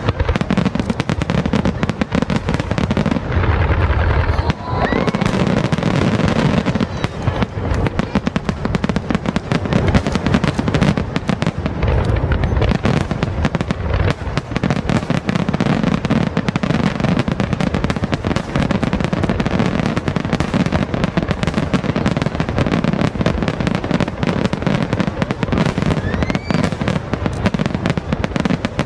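Fireworks display at full barrage: a dense, continuous run of shell bursts and crackling, with deep booms and a couple of rising whistles.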